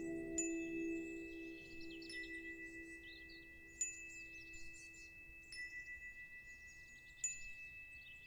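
Soft ambient background music fading out: a bell-like chime note struck five times at even intervals over a low sustained drone that dies away.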